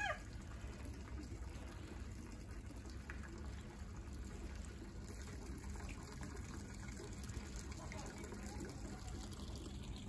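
Steady stream of water pouring from a pipe spout into a plastic tub, a continuous splashing trickle.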